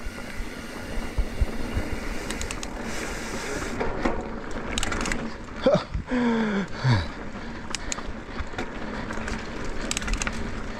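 Mountain bike rolling along a dirt singletrack trail: steady tyre noise with frequent rattles and knocks from the bike going over bumps. A short sound falling in pitch comes about six seconds in.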